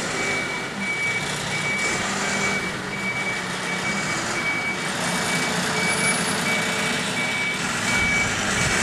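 Vehicle reversing alarm sounding a single high-pitched beep at a steady, even rate, over the sound of the vehicle's engine running.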